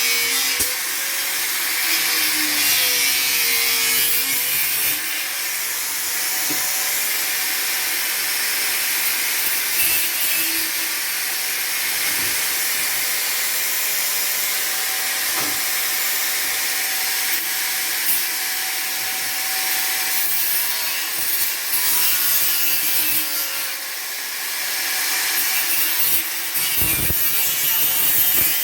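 Electric power saw cutting steadily through roofing material for a vent opening, its motor pitch wavering as the blade bites.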